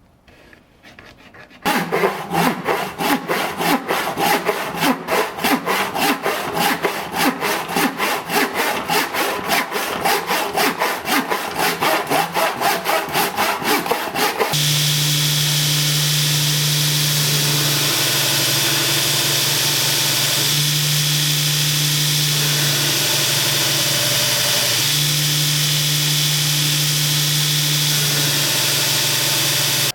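Hand saw cutting through a wooden handle block with quick, even strokes, about four a second. About halfway through it gives way to a steady electric power tool running, its hum dropping away briefly a couple of times as the load changes.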